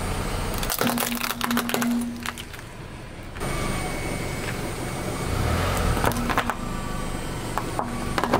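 A car tyre rolling slowly over small hard objects on asphalt: a plastic toy container and sticks of chalk. They give sharp cracks and crunches in clusters, about a second in, again around six seconds, and near the end.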